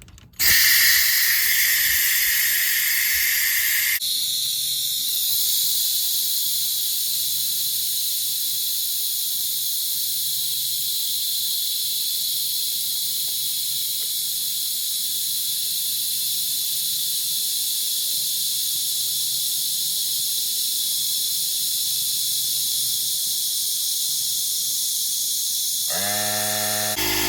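Compressed-air venturi vacuum-fill tool on a car's cooling system hissing steadily as it pulls the system down to vacuum. The hiss shifts about four seconds in, and a lower hum joins in near the end.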